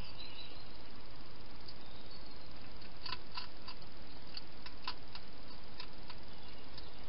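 A wild hedgehog making a run of about a dozen short, sharp clicks over roughly three seconds, starting about three seconds in, over a steady hiss.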